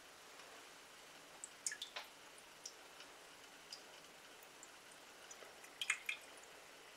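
Water from a kitchen faucet let out at a bare trickle into a mug and the sink: faint scattered drips and small ticks, a cluster about two seconds in and another near the end.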